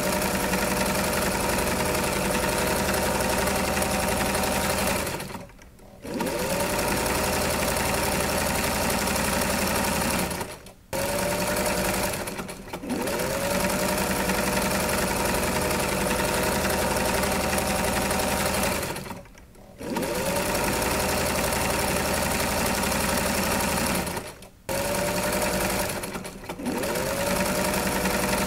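Electric sewing machine running in long stretches, stopping briefly about six times and spinning its motor back up after each stop.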